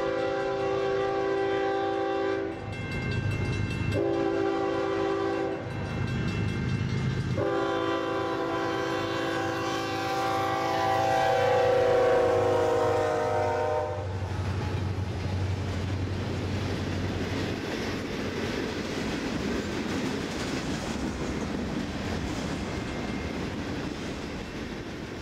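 Union Pacific ES44AC locomotive's Nathan K5HLL five-chime air horn sounding the end of one blast, a short blast, then a long blast whose pitch drops as the locomotive passes. After that a long manifest freight train rolls by, its steel wheels clattering over the rail joints.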